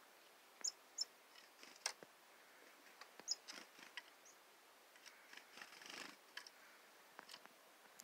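Chickadee giving three short, very high chirps, with light taps and scratchy rustling close by as the small bird moves about the wooden frame.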